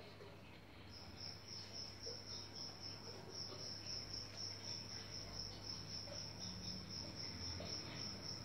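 A cricket chirping in a rapid, even pulse, resuming about a second in after a short pause, over a faint steady low hum.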